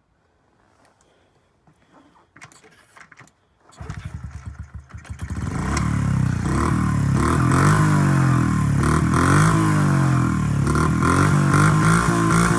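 A Honda CRF50F pit bike's small single-cylinder four-stroke engine is kickstarted after a few faint knocks. It catches about four seconds in and sputters unevenly, then settles into loud running with its speed wavering up and down. It is being started with the choke on after two years without running.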